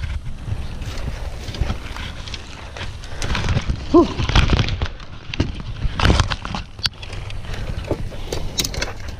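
Wind rumble on the microphone with crackling and rustling of dry leaves, twigs and large leaves as someone pushes through undergrowth on foot, the crackling heaviest between about three and six and a half seconds in.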